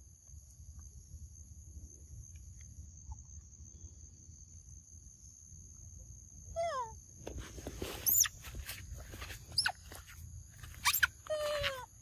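A young macaque gives short squealing calls that fall in pitch, one about two-thirds of the way in and another near the end, mixed with sharp high squeaks and crackling rustle. Under it runs a steady high insect drone.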